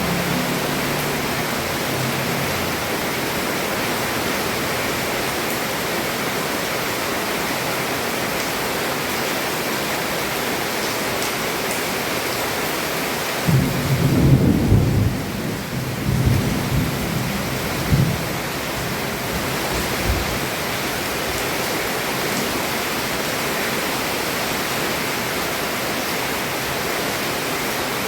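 Heavy rain pouring steadily on a roof. A low rumble of thunder comes about halfway through and rolls on in several swells for some seven seconds.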